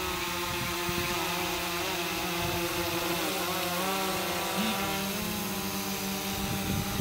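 Small quadcopter drone's propellers buzzing as it flies, the whine shifting up and down in pitch as its motors speed up and slow down, with a step up about two-thirds through.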